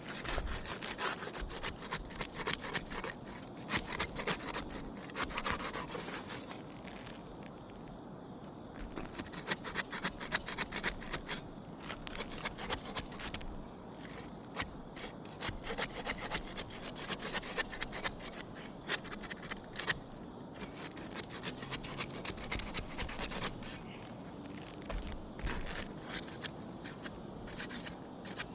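Asphalt roof shingles being scraped and worked loose, in runs of rapid crackling, scraping strokes broken by a few short pauses.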